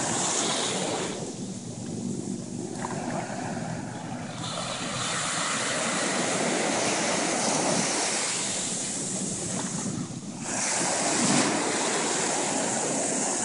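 Ocean surf breaking and washing through the shallows, the rush of water swelling and easing as each wave comes in.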